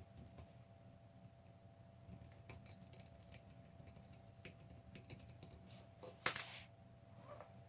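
Light metallic clicks and scraping of a lock pick working the pins and sliders inside a Yale Platinum 3-star cylinder, with a louder click and scrape about six seconds in.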